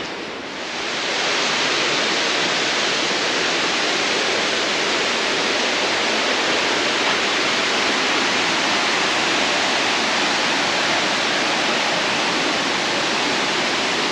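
Waterfall: the steady rush of falling water, which swells up about a second in and then holds even.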